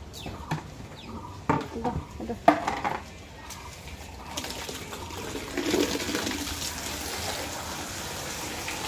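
A few knocks and clatters, then from about four seconds in water gushing and splashing steadily.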